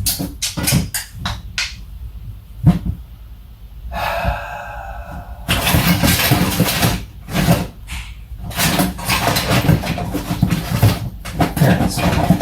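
Irregular rustling, knocking and scraping of things being handled and moved about, with a quieter spell and a brief faint pitched sound near the middle.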